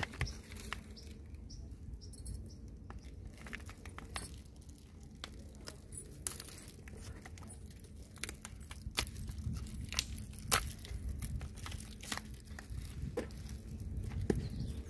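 Crinkling and tearing of a foil sachet being handled and opened by hand, in scattered small crackles and clicks over a low rumble.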